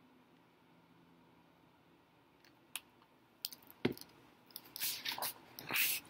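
A picture book being handled: after a few quiet seconds come several short knocks and clicks, then two longer paper rustles as a page is turned.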